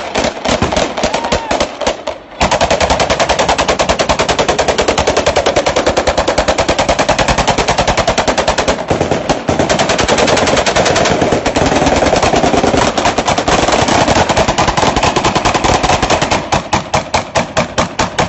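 Fully automatic AK-47 rifle fire in long, rapid, almost unbroken bursts, with a short pause about two seconds in; near the end the shots come more spaced out.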